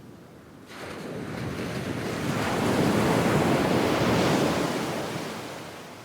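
One medium wave washing up on sand: the hiss of water comes in suddenly about a second in, swells to its loudest around the middle, then fades away.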